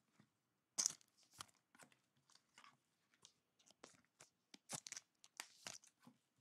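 Thin clear plastic card sleeves crinkling in short, sharp rustles as trading cards are handled and slid into them, with the loudest crackle about a second in and a cluster of them near the end.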